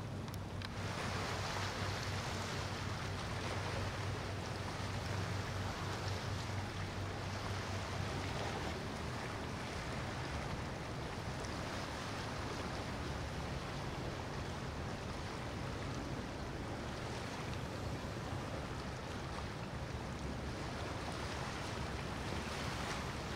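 Large motor yacht passing on open water: a steady low engine drone under a continuous rush of wake water and wind.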